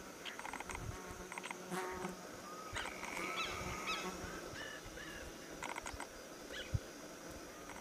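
Natural wildlife ambience: a steady high-pitched insect drone, with bursts of rapid clicking chirps and short whistled calls, most of them a few seconds in.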